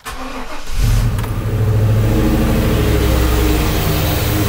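1995 GMC Suburban's 5.7-litre TBI V8 running with its passenger-side valve cover off and the rocker arms exposed. It comes in abruptly, grows louder about a second in, then runs steadily.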